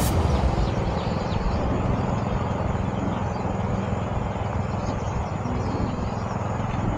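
Steady low engine rumble with wind noise on the microphone, from a vehicle travelling along at an even speed.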